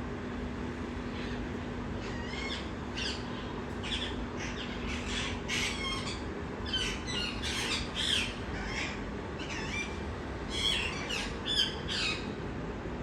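Parrots squawking, a quick series of short, harsh calls that bend in pitch, starting a couple of seconds in and going on until near the end, over a steady background rumble.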